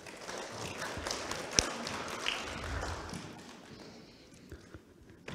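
Audience applause, light and scattered, dying away over about three seconds.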